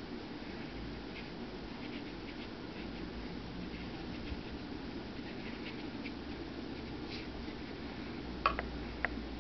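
Faint scratching of a watercolour brush held between the toes, dabbing paint onto paper, over a steady low hum. Two sharp clicks near the end.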